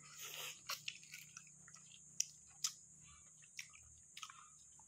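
A short slurp as the broth is sipped from an opened balut (boiled fertilised duck egg), then chewing with a scatter of sharp clicks and smacks.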